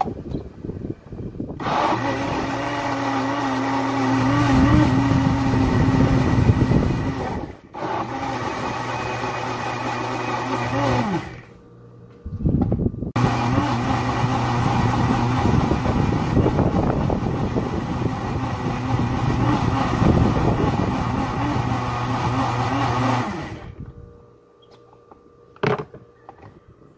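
Personal cup blender motor running, blending a cupful of fruit and ice cream into a smoothie. It runs for about nine seconds with a brief dip partway, stops for a moment, then runs again for about ten seconds. A short knock from handling the cup follows near the end.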